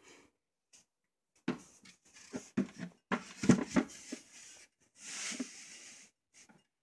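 Close handling noises: a run of irregular knocks and taps starting about a second and a half in, then a brief rustling hiss a little after five seconds.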